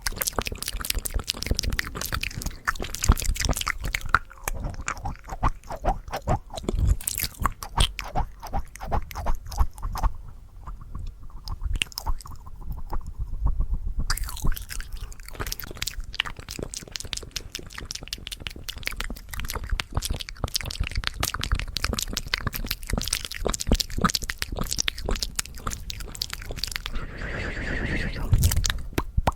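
Fast ASMR mouth sounds close to the microphone: rapid wet clicks and smacks of tongue and lips, many per second. They turn softer for a few seconds around the middle.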